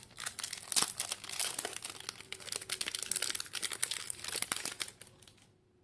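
Foil Pokémon booster pack wrapper crinkling and tearing as it is opened by hand, a dense run of rapid crackles that dies away about five seconds in.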